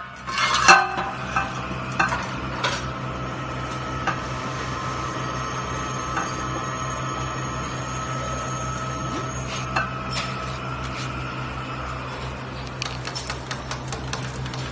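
Steady hum of workshop machinery running, with a loud metallic clatter about half a second in and scattered metal clinks and knocks as pieces of square steel tube are handled, several in quick succession near the end.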